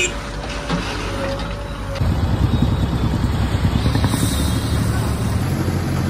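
A JCB 3DX backhoe loader's diesel engine runs while its bucket works over crushed stone. About two seconds in, the sound switches to a louder, dense rumble: a tipper truck's diesel engine running as dry lean concrete pours out of its tailgate.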